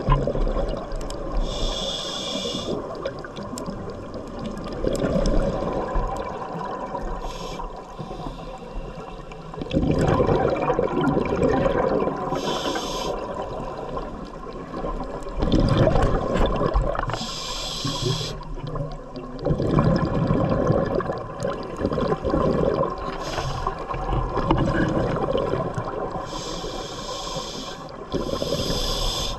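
Scuba diver breathing through a regulator underwater: about a second of hissing air on each inhale, roughly every five seconds, and noisy gushes of exhaled bubbles in between.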